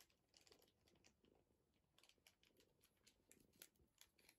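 Faint rustling of a bag being handled nearby: irregular short crackles and clicks.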